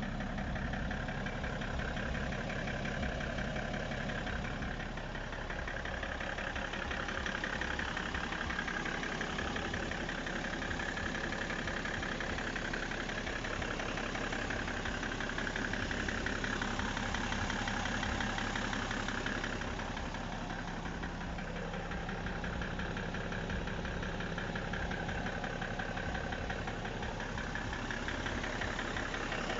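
BMW E60 535d's twin-turbo straight-six diesel idling steadily with a rapid, even knocking, which the owner questions as possibly abnormal.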